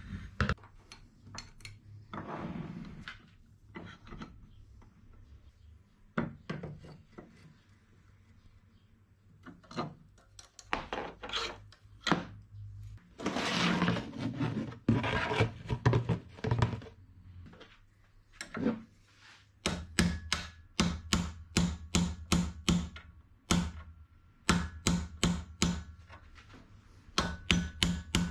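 An old car shock absorber being handled and clamped in a bench vise: scattered knocks and scraping of metal. In the last third this gives way to a regular run of sharp hammer blows, about two a second, on a punch held against the shock absorber's steel tube, each with a faint ring.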